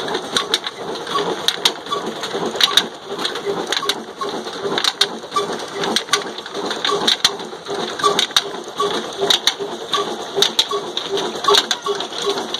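Old black desi Ruston Hornsby-type single-cylinder engine driving a stone flour mill (chakki) through flat belts and pulleys. It makes a steady grinding rush, with a rapid regular beat and scattered sharp clicks.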